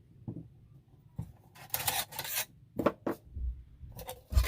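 Small pieces of a camping cook kit being handled: a stretch of rubbing and scraping near the middle, then a few sharp clicks and soft knocks, the loudest knock near the end.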